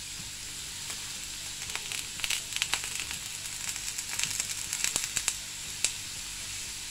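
Beef patties and long green peppers sizzling on a hot ridged grill pan, a steady hiss. A run of sharp crackling pops comes in the middle, as the peppers are laid on the hot ridges.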